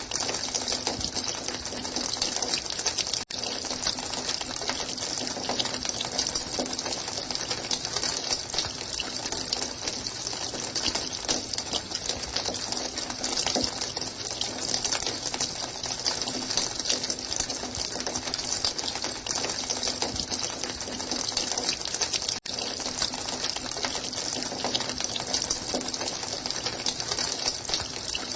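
Running water: a steady, continuous splashing rush, with two momentary gaps, one about three seconds in and one about two-thirds of the way through.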